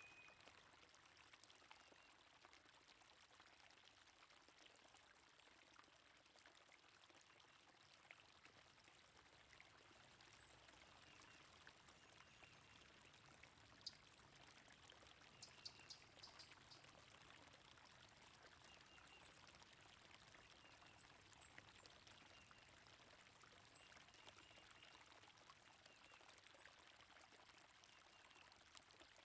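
Faint, steady flowing water, with scattered short, faint bird chirps over it and a few light splashes or clicks near the middle.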